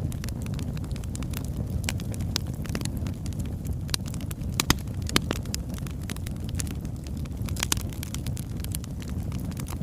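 Wood fire burning: a steady low roar of flames with irregular sharp crackles and pops from the logs, a couple of louder pops about halfway through.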